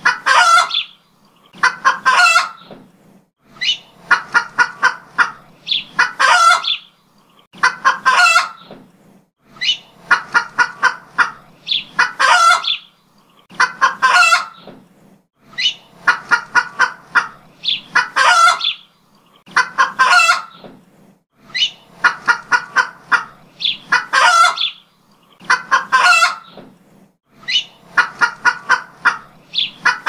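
Domestic hen cackling 'petok-petok': a quick run of short clucks ending in one louder, drawn-out call, repeated about every two seconds.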